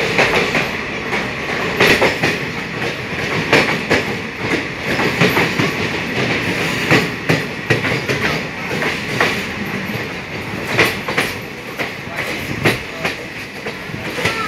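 Moving train heard from a coach window as it runs through a tunnel and out into the open: wheels clattering over rail joints in irregular sharp clacks over a steady rumble and rush of noise.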